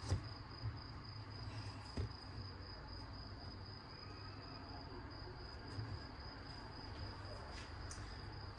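Faint steady high-pitched whine over a low hum, with a light click from the stainless-steel pot lid as it is settled near the start and another about two seconds in.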